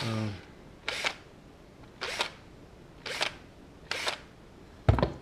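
Cordless drill with a step bit cutting ABS plastic in four short bursts about a second apart, opening out the screw holes of a motor guard. A sharp knock near the end is the loudest sound.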